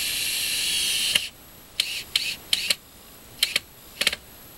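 Cordless drill motor whining steadily for about a second, then stopping and giving about five short bursts of the trigger, as it drives screws into the wooden egg door of a chicken coop.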